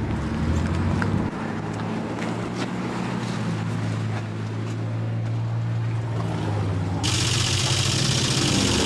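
A steady low hum of several held tones, with a loud hiss setting in about seven seconds in and running to the end.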